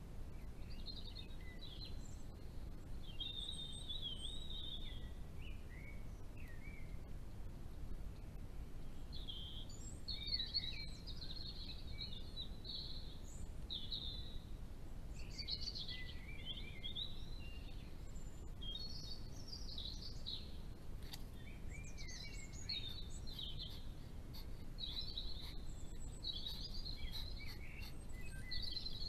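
Songbird singing before dawn: short, varied warbling phrases, one after another, over a steady low background rumble.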